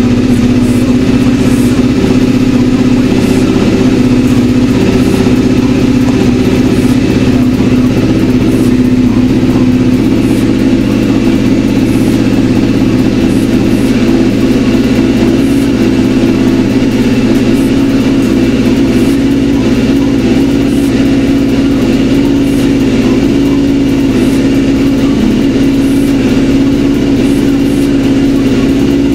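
A 2003 Suzuki GSX-R600's inline-four engine idles steadily through a newly fitted Micron aftermarket muffler. It is loud, with a constant pitch and level throughout.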